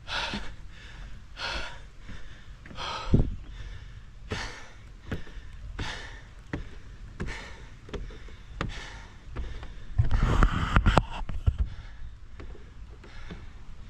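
A man panting hard from running up stairs, with a breath in or out about every three quarters of a second and footsteps thumping on the wooden boardwalk steps. About ten seconds in comes a louder burst of rustling noise lasting about a second.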